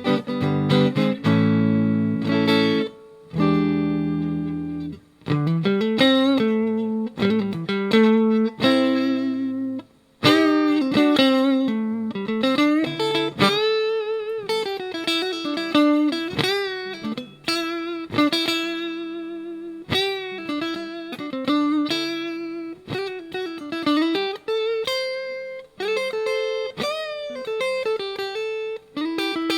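Electric guitar played clean through a small practice amp. It opens with a few ringing chords, then moves to single-note melodic lines with string bends and vibrato, with a short break about ten seconds in.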